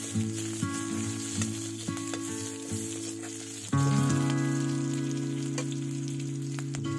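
Sliced onions and green chillies sizzling as they fry in oil in a wok, stirred with a metal ladle. Background music of held notes plays over it, with a louder long chord coming in about halfway through.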